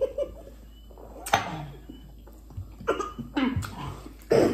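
A person coughing about four times, in short separate coughs spread a second or so apart, from the burn of very spicy ramen.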